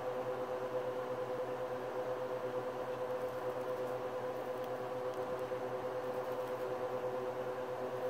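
Steady machine hum with a constant mid-pitched tone.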